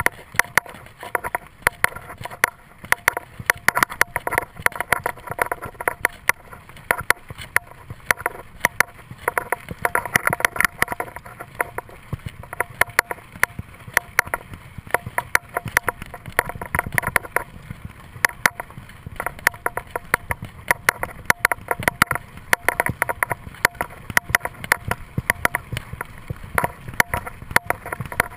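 Bicycle rattling and clattering as it rides over a bumpy dirt trail: a constant stream of sharp knocks and rattles from the bike over the rough ground, over tyre and rolling noise.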